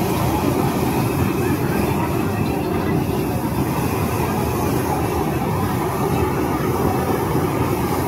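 Steady low roar, even and unbroken, of a stir-fry kitchen's high-pressure gas wok burners.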